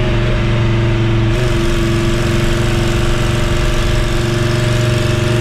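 Mercedes-Benz 407 van's OM617 five-cylinder diesel engine running at a steady speed under way, heard from inside the cab.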